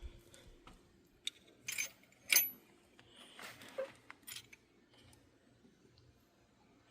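Light metallic clinks and clicks from small metal parts or tools being handled, the sharpest about two seconds in with a brief ring, plus a short rustle near the middle.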